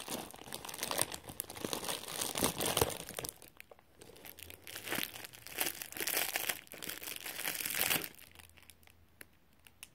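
Packaging crinkling and rustling as a parcel is unwrapped by hand, with some tearing, in bouts that die away about eight seconds in.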